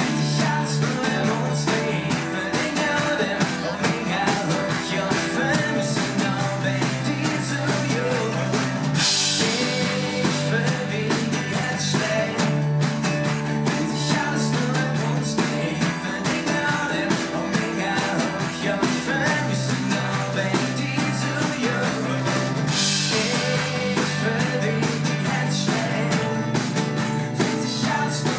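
Live band playing an acoustic pop-rock song: strummed acoustic guitars, an electric archtop guitar and piano over a steady bass line. Bright cymbal swells come in about nine seconds in and again near twenty-three seconds.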